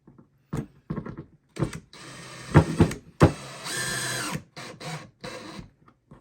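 Cordless drill driving a screw in two short runs of about a second each, the second with a steady whine, among clicks and knocks of the work.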